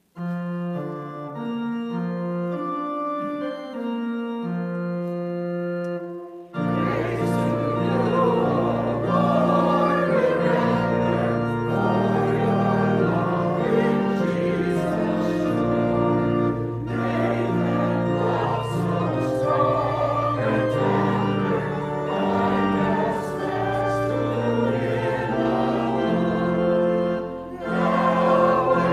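Organ playing held chords as a hymn introduction, then about six seconds in a small choir comes in singing the hymn over the organ accompaniment.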